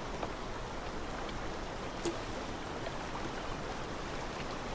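Steady rush of flowing river water, with a brief click about two seconds in.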